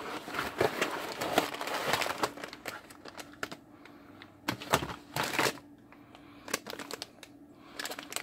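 Thin plastic component bags crinkling and rustling as they are handled. The rustle is densest in the first two seconds and comes again in a short burst about halfway through, with scattered light handling clicks in between.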